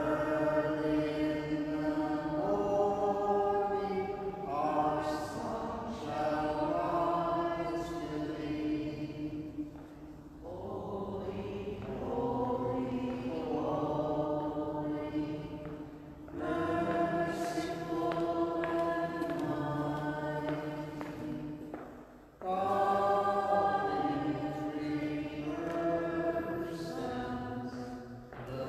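A hymn sung slowly in long held notes, phrase by phrase, with short breaks between the phrases; it is the entrance hymn sung as the priest comes to the altar.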